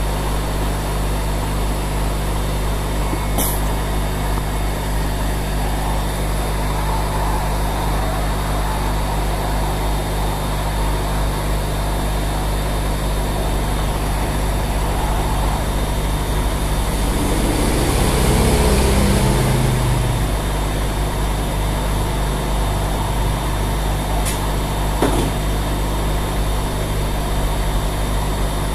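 Hot-air rework station blowing steadily with a low hum and an airy hiss as it heats a phone's CPU to lift it off the board. The blast swells louder for a couple of seconds a little past the middle, and a few faint clicks come from tweezers working at the chip.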